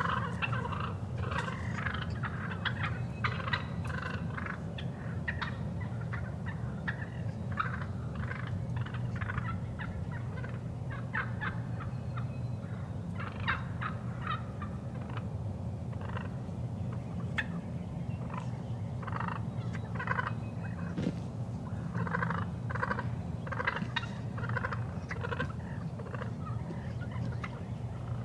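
Eastern wild turkeys calling and gobbling again and again in short bursts, over a steady low hum.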